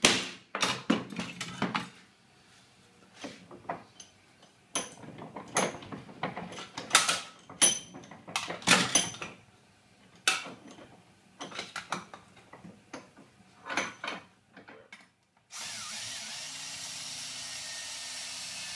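Sharp hammer knocks and metallic clatter as the steel trunking lid is struck, handled and clamped in a bench vice. About fifteen seconds in, a cordless drill starts and runs steadily, boring a hole through the steel lid with a 6.5 mm HSS bit.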